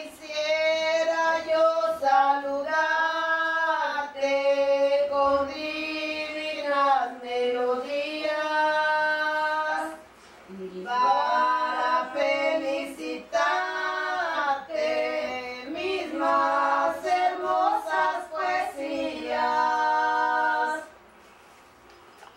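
Women singing a slow song without accompaniment, in long held notes, breaking off briefly about ten seconds in and stopping shortly before the end.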